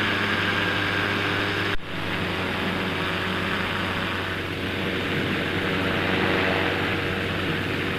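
Quicksilver ultralight's engine and propeller running steadily in cruise flight, with a rush of wind noise in the open cockpit. The sound cuts out for an instant just under two seconds in.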